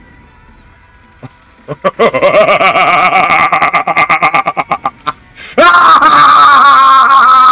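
Loud rapid laughter in quick bursts, then, about halfway through, a long loud held scream or yell that carries on to the end.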